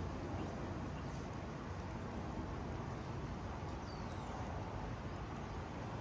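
Steady low rumble of distant road traffic. A faint, high, descending bird call comes about four seconds in.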